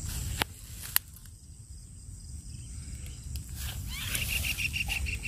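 Two sharp metal clicks in the first second from pliers and a lip-grip tool being handled while unhooking a fish. Near the end comes a high, fast-pulsed insect chirping, about ten pulses a second.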